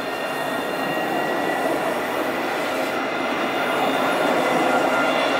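Alstom Citadis tram running past at close range, its wheels rolling on the rails, with steady high-pitched whining tones over the rumble. It gets a little louder near the end.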